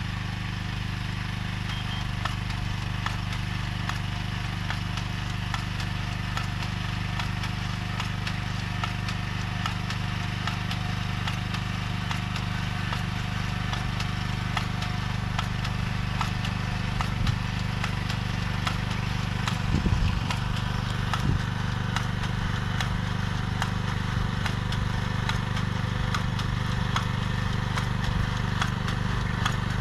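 Small engine of a vegetable transplanter running steadily, with light clicking throughout and a couple of louder knocks about two-thirds of the way through.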